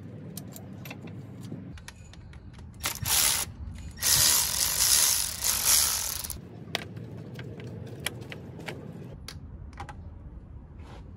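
Cordless electric ratchet running in two bursts, a short one about 3 s in and a longer one from about 4 to 6 s, driving a bolt on the engine. Scattered sharp clicks and clinks of tools against metal come before and after.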